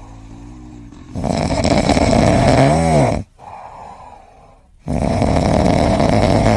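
A pet snoring loudly: two long snores about three and a half seconds apart, the first ending in a short whine that rises and falls.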